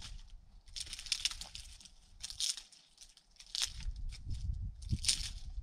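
Hands crinkling and crumpling dry material in four short bursts, over low wind rumble on the microphone.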